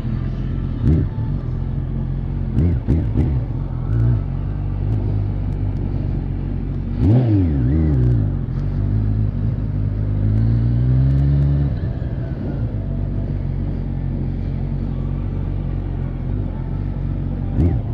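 Sport motorcycle engine, heard from the rider's helmet camera, running at low revs through a slow cone course. There is a quick rev up and down about seven seconds in, and a climbing rev from about ten to twelve seconds in.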